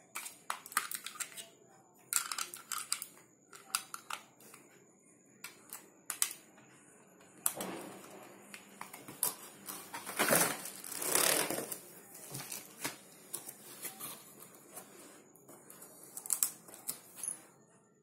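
Hands handling cardboard and plastic packaging: a string of small clicks and taps, with longer scraping rustles of the cardboard box and plastic wrap about eight seconds in and again from about ten to twelve seconds.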